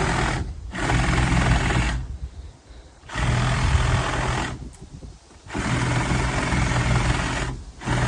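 A vehicle engine running loud and rough, with heavy noise on top, that cuts out almost completely a few times and comes back each time.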